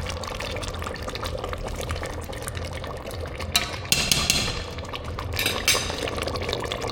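Liquid being poured in a kitchen, with a brief hissing splash about four seconds in and a shorter one a little later, over a steady low hum.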